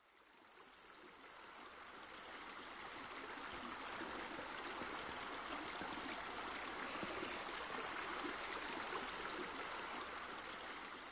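Steady flowing water, fading in over the first few seconds and then holding even.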